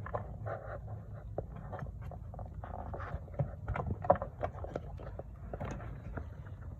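Scattered light clicks and knocks with rustling: hand tools, a socket and ratchet extension, being handled over a low steady hum.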